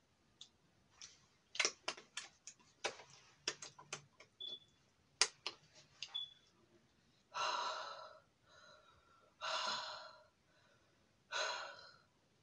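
Close-miked wet mouth clicks and smacks of chewing food, then three loud breaths, each under a second, about two seconds apart.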